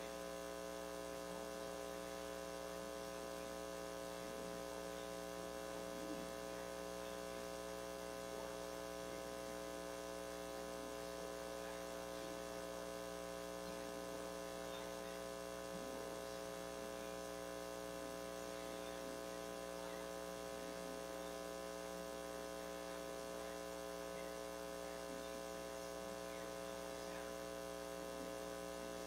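Steady electrical mains hum: a stack of unchanging buzzing tones at a constant level, with no other sound standing out above it.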